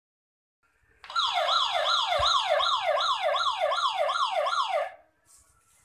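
Electronic siren sound from a child's ride-on toy tricycle's handlebar sound unit: a fast up-and-down wail repeating about three times a second. It starts about a second in and stops near the end.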